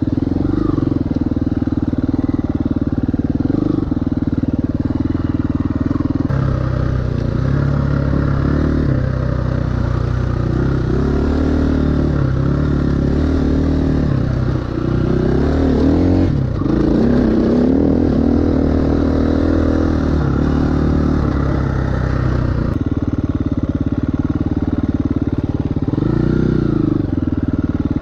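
KTM 350 EXC-F's single-cylinder four-stroke engine under way, at a steady note at first. Through the middle it revs up and down repeatedly as the throttle is worked, then settles back to a steadier note near the end.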